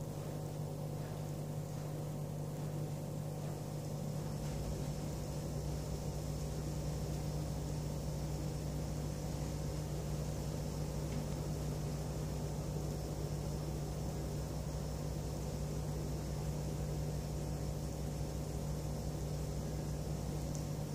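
A steady machine-like hum with a faint hiss, its pitch and tone changing slightly about four and a half seconds in.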